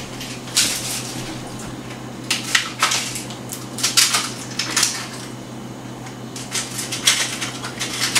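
Dishes and kitchen utensils being handled, in short, irregular clinks and clatters.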